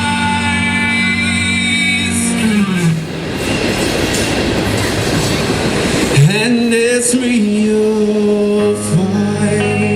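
Live rock band playing an instrumental break without vocals. Long held notes give way to a noisy wash of sound in the middle. About six seconds in, a note slides upward and is held.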